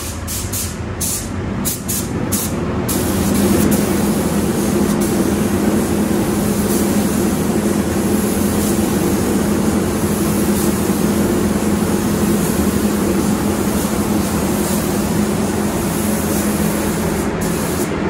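Gravity-feed spray gun hissing as it sprays polyester primer onto a car's wing, over a steady low hum; a few clicks sound in the first seconds, and the sound grows louder about three seconds in.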